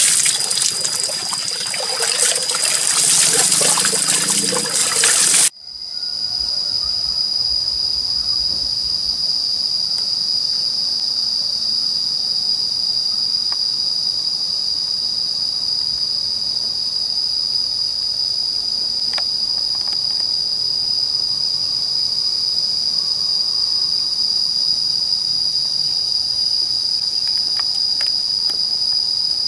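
Water poured from a plastic dipper splashing over a bather and onto the ground, cutting off abruptly about five seconds in. It is followed by a steady, high-pitched insect chorus that continues without a break.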